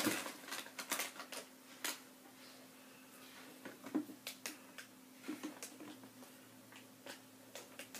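Faint, irregular clicks and taps from handling close to the microphone, over a faint steady hum.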